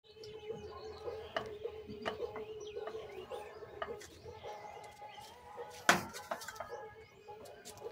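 Birds chirping in the background over a steady hum, with scattered clicks and one loud, sudden sound about six seconds in.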